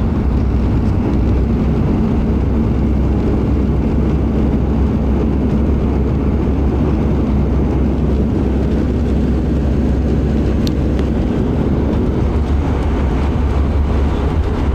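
Steady drone of a Bombardier Q400's Pratt & Whitney PW150A turboprop engine and six-blade propeller, heard inside the cabin beside the left engine, as the aircraft rolls along the runway after touchdown. The noise is deep and constant throughout.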